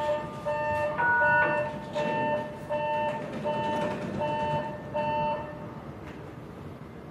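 Electronic door chime of a JR West 521 series train standing with its doors open. It beeps in two tones about twice a second, then stops about five and a half seconds in.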